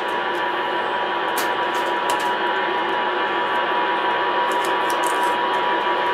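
Shortwave communications receiver tuned to 15.000 MHz hissing with steady static through its speaker, with a steady tone near 1 kHz running under the noise. Faint scattered clicks come and go.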